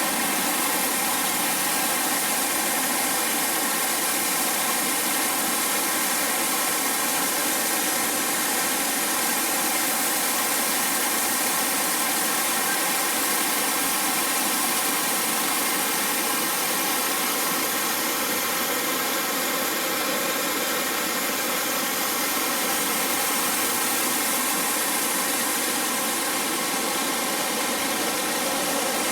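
Waterfall: a steady roar of falling water that holds even, with no breaks.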